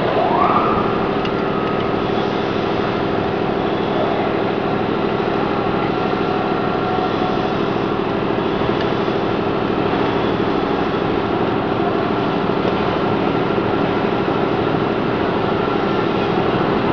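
An electric motor starts up with a quick rising whine, then runs steadily with an even, humming drone and a thin whine above it.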